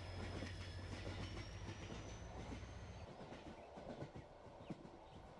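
An ES2G electric train running, heard from inside a carriage: wheels clicking on the rails over a steady rumble, with a low electric hum and a faint high whine that rises slowly. The hum and the whine cut off about three seconds in.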